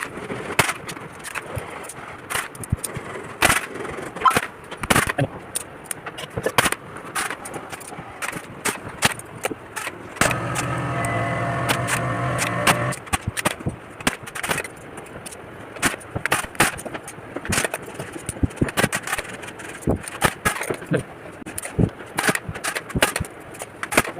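Irregular sharp clicks and knocks from hand work on a padded headboard, with a small motor running steadily for about three seconds near the middle.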